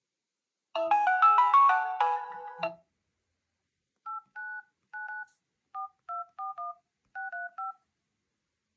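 A brief phrase of a phone ringtone melody for about two seconds. After a pause come about ten short two-tone keypad beeps, DTMF tones, in uneven bursts as a phone number is keyed into a smartphone's dialer.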